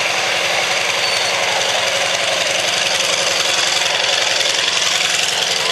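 Antonov An-2 biplane's nine-cylinder radial engine running on the ground. It makes a loud, steady sound with a fast, even beat of firing strokes under a wash of propeller noise.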